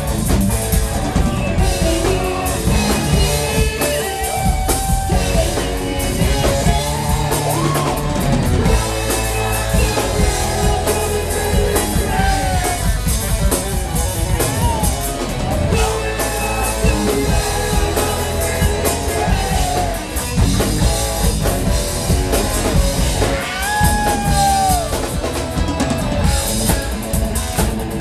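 Live rock band playing: drum kit, electric guitar and bass under a lead vocalist singing.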